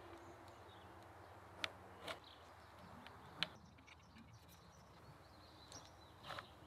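A few light clicks and taps of empty aluminium drink cans being set in place on one another, against near silence.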